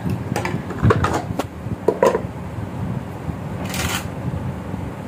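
Plates and serving dishes clinking and knocking against each other as they are picked up and stacked, a few separate knocks in the first two seconds, and a short rustling hiss about three-quarters through.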